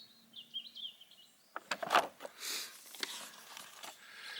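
A small bird twittering for about the first second, then the papery rustle of a book's pages being handled and turned.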